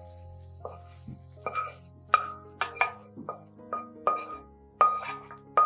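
About ten sharp clinks, each with a short ring, as a frying pan and utensil knock against a ceramic bowl while fried grated cauliflower is scraped into it. Soft background music plays underneath.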